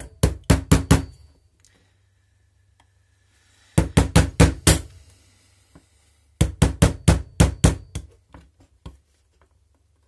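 Small hammer tapping a thin blade into the welded seam of a plastic wall-wart adapter case to split it open, in three quick runs of sharp taps, about four or five a second, with pauses between, then a few lighter taps.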